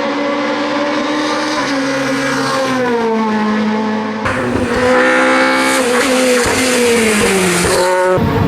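Opel Kadett E hill-climb race car's engine at high revs, its pitch dropping and then holding between gear changes. About four seconds in the sound turns suddenly louder and harsher, then slides steadily down in pitch.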